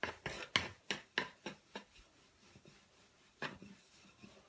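Wooden rolling pin rolling out a ball of wheat dough on a wooden worktop: a quick run of short knocks and rubs, about four a second, for the first two seconds, then one more knock about three and a half seconds in.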